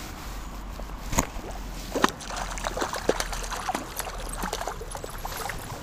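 A hooked trout thrashing at the river's surface: a run of small splashes and drips, the first sharp splash about a second in and growing busier from about two seconds on.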